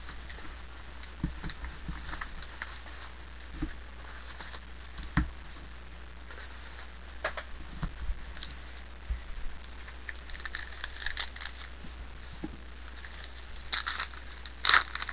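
Trading-card packs being lifted out of a cardboard hobby box and set down on a wooden table: scattered light taps and wrapper rustles. Near the end comes a louder crinkling as a pack wrapper is torn open.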